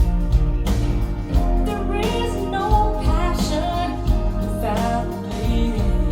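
A song with a singer, guitar, bass and a steady drum beat, played back through SVS Prime Tower floor-standing loudspeakers.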